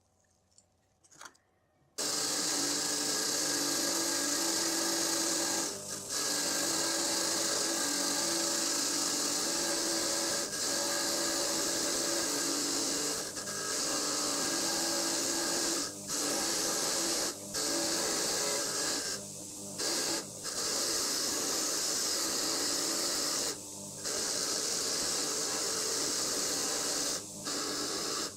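A handheld power tool starts about 2 s in and runs steadily with a hissing, grinding sound, with several short breaks where it is let off, while working on a mini dirt bike's chain.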